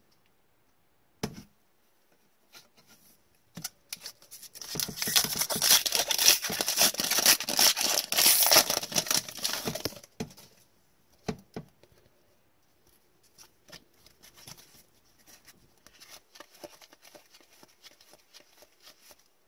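Foil wrapper of an Upper Deck hockey card pack torn open and crinkled: loud crackling for about five seconds. This is followed by softer rustling and light clicks as gloved hands slide and sort the cards.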